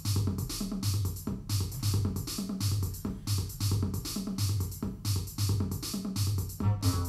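Electronic jam music: a drum-machine beat with a steady kick and crisp hi-hats over a synth bass line. A higher synth part drops out at the start and comes back in near the end.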